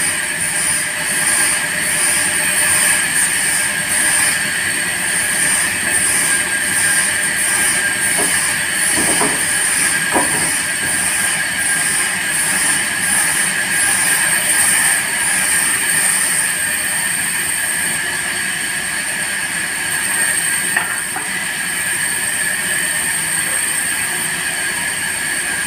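Sawmill band saw running and cutting timber: a steady, high metallic whine with a hissing edge, pulsing evenly about twice a second for the first half or so.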